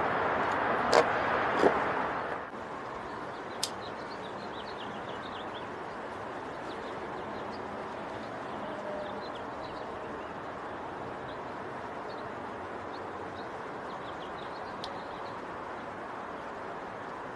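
Outdoor ambience: a louder steady rush with two sharp clicks for the first two seconds or so, then a sudden drop to a quieter steady hiss with small birds chirping faintly and on and off.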